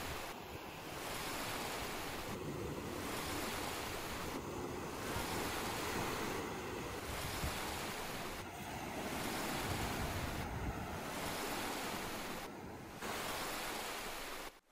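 Surf on a sandy beach: small waves breaking and washing up the shore in a steady rush.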